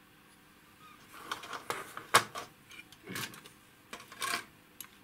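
Handling noises from a small circuit board and a thin insulating sheet being moved over an opened metal instrument chassis: a run of clicks, scrapes and rustles, with one sharp click a little after two seconds in.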